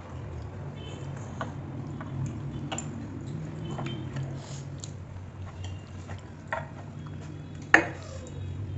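Sounds of eating a meal: scattered small clicks and taps of food and fingers or a spoon against a plate, with one sharp clink near the end.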